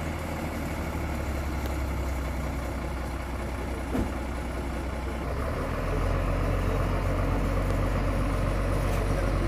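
Heavy diesel truck engine idling steadily close by, its low hum stepping up in level about six seconds in, with a brief knock about four seconds in.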